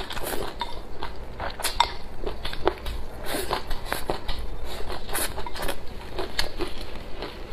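Close-miked eating: wooden chopsticks clicking and scraping against a porcelain rice bowl as rice and kelp strips are scooped into the mouth, with moist chewing. The clicks come irregularly, several a second.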